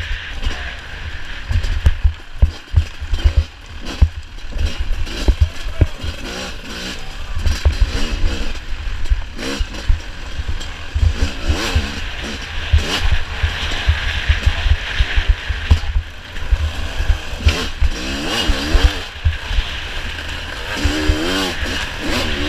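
Off-road racing engine revving up and down over and over, with heavy low thumping and rumble throughout.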